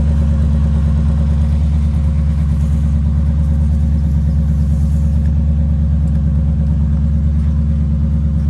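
Vehicle engine running at a steady low drone with no change in pitch or level.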